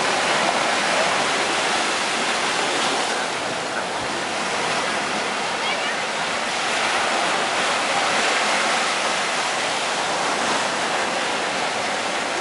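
Steady wash of small surf breaking and running up a sandy beach.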